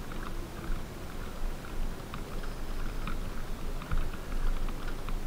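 Low wind rumble on the camera microphone with scattered faint ticks and rustles, as the electric motorcycle rolls slowly over grass; no motor note stands out.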